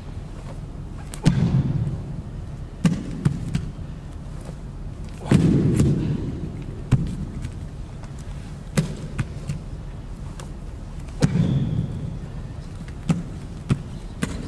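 Sharp slaps and dull thumps of two karateka's arms and bodies meeting in a partner drill, with a reverberant tail. Irregular light knocks run throughout, and three heavier thuds come about a second in, around five seconds in and around eleven seconds in.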